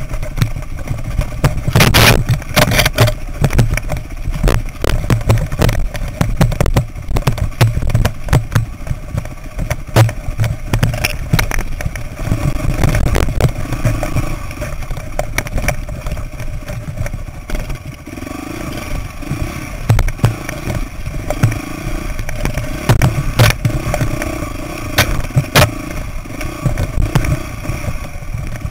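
Dirt bike engine running on a rocky trail, its loudness rising and falling, mixed with clatter and knocks from the bike bouncing over rocks; one hard knock about two seconds in.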